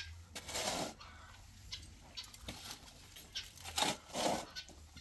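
Chickens clucking, with two short, noisy bursts, one near the start and one about four seconds in.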